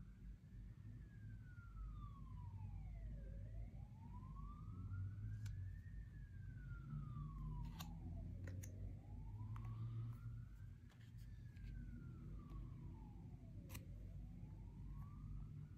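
A faint emergency vehicle siren sounding a slow wail, its pitch rising and falling about every five seconds, over a low steady rumble. A few short sharp clicks stand out.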